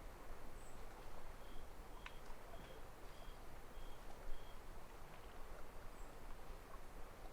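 Small ripples lapping gently against a lakeshore, a soft steady wash with faint irregular splashes. A bird repeats a short, high note six times in an even series.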